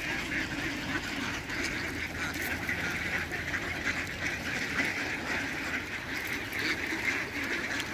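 Large flock of mallard ducks quacking and chattering continuously, with Canada geese honking among them.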